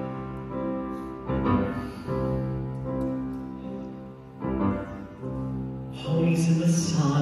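A small orchestra with piano playing a musical-theatre song's introduction: held chords that change every second or so, swelling louder and fuller about six seconds in.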